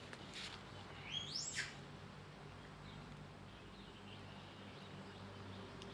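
An infant macaque gives one short high squeak about a second in, rising in pitch and then dropping.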